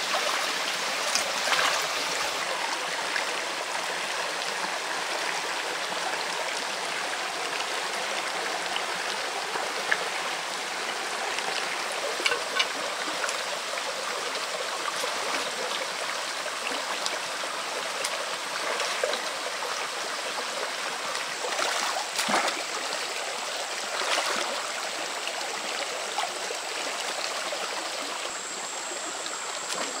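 Shallow rocky stream flowing with a steady rush of water, broken a few times by short splashes and knocks as hands work in the water.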